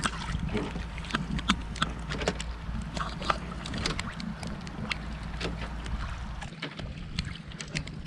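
Rain falling on a small wooden outrigger boat and the sea around it, heard as a steady hiss with many sharp drop-clicks. A low steady rumble underneath cuts off suddenly about six and a half seconds in.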